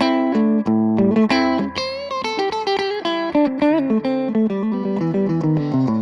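Electric guitar played through a Cort MX15 practice combo amplifier: a picked single-note melody, with a bent note and vibrato about two seconds in.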